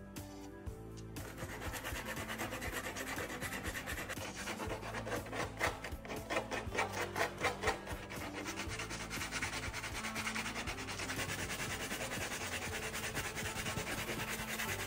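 Repeated scraping strokes, quickest and loudest in the middle, over background music.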